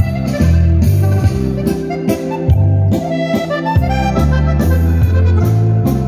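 Live amplified accordion playing a dance tune, with a bass line and a steady drum beat underneath.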